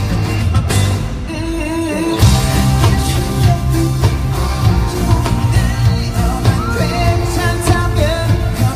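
Pop song with a male voice singing over a heavy bass beat, played live over a concert sound system. The bass drops out for about a second near the start, then comes back in.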